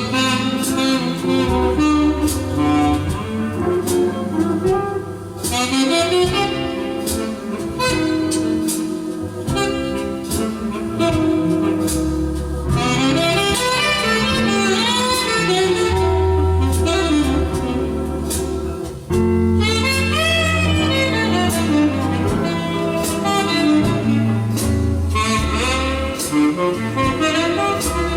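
A record playing on a Philips AF 829 mark 2 automatic turntable: instrumental jazz with a gliding saxophone-like lead over a steady bass line.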